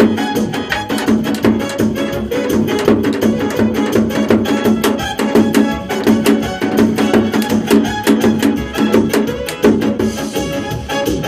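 Janggu (Korean hourglass drum) played in a fast, dense run of sharp strokes, with instrumental music underneath.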